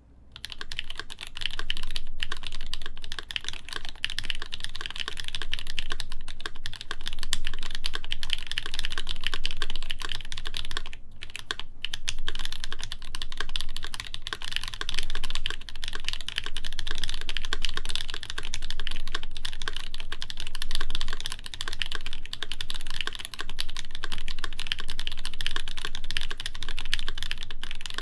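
Continuous fast typing on a RAMA WORKS U80-A mechanical keyboard with a full brass plate, lubed NK Cream linear switches and GMK keycaps: a dense, steady stream of keystrokes. It starts right at the opening and has a few short pauses, about two, eleven and twelve seconds in.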